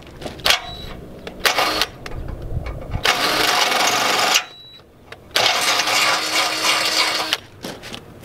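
Arc welding on a trailer's steel tongue jack mounting plate: a few short bursts of arc noise, then two longer ones of about one and a half and two seconds, each stopping abruptly, with a short pause between.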